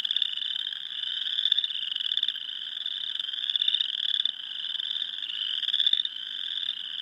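A dense spring chorus of many small frogs, their pulsed trills overlapping into one unbroken, high trilling din.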